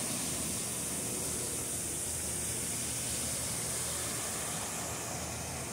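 Waterfall running: a steady hiss of falling water.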